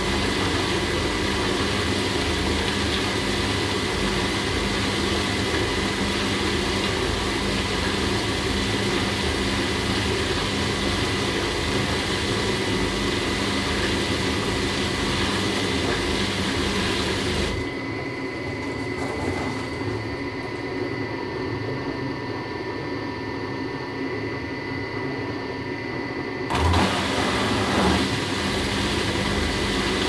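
Washing machine running: a steady mechanical hum from its motor and drum with a faint steady high tone. A little past halfway it drops quieter and duller for about nine seconds, then picks back up with two thumps.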